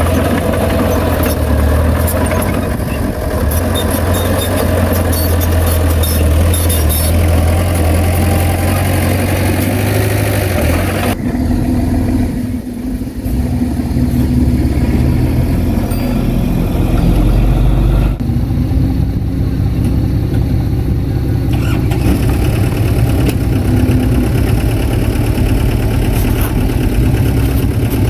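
Bulldozer's diesel engine running steadily, with clattering in the first part; the sound changes abruptly about eleven and eighteen seconds in.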